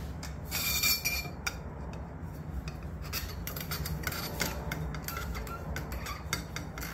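Metal barrel shroud of an Air Venturi Avenger air rifle being slid over the barrel, scraping and clicking metal on metal. There is a louder scrape about half a second in.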